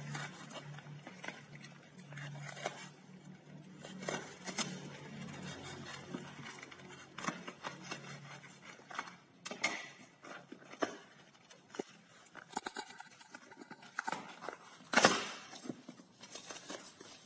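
Packaging being handled and opened during an unboxing: scattered clicks, taps and rubbing of the box and wrapping, with one louder knock about fifteen seconds in.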